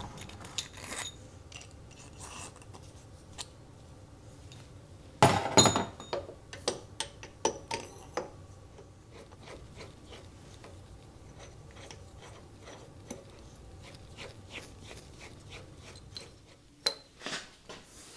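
Metal parts of a South Bend lathe tailstock clinking and clicking as they are handled and fitted together: the new Acme screw, the ram and the handwheel. A louder clatter comes about five seconds in, followed by a quick run of light clicks, and a few more clinks come near the end.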